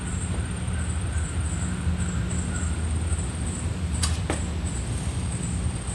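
Room tone: a steady low hum with a thin high whine, broken by a single sharp click about four seconds in.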